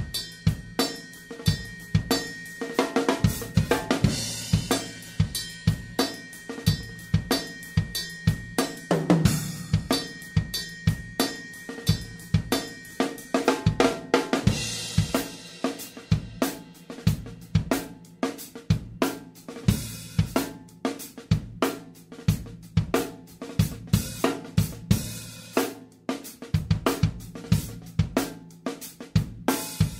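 Acoustic drum kit played on its own, with no other instruments: a steady beat on kick drum, snare and hi-hat, with crash cymbals hit every few seconds.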